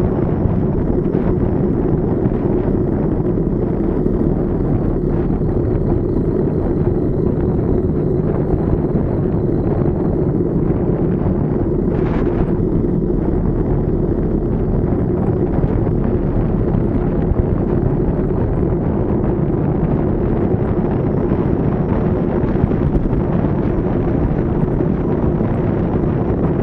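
Steady, loud wind rushing over the microphone at downhill riding speed. It masks the vibration of the TDH S1's shock-wrapped wheels, leaving a continuous low rumble.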